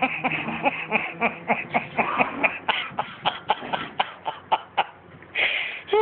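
Small dog dashing around on a hardwood floor: a quick, irregular run of taps and scuffles, about four or five a second, growing fainter, then a short rushing noise near the end.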